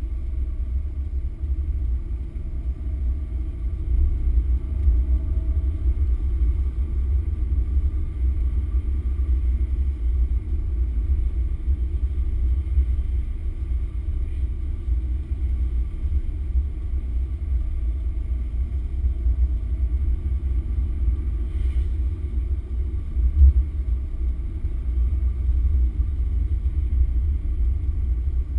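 Car driving on the road, heard from its dashboard: a steady, muffled low rumble of engine and road noise, with one brief thump about 23 seconds in.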